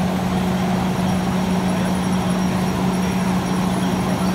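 Parked fire truck's engine running steadily, a constant even hum that holds one pitch.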